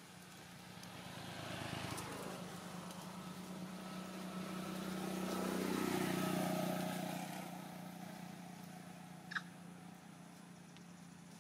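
Motor vehicles passing on the road, the noise swelling and fading twice, the second pass louder with its engine pitch falling as it goes by. A short, sharp high chirp about nine seconds in.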